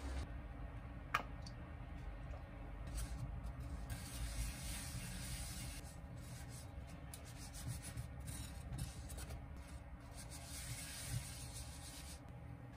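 Paper towel held in chopsticks wiping around the inside of a Happycall Flex nonstick pan: a soft rubbing that comes and goes in strokes. A single sharp click sounds about a second in.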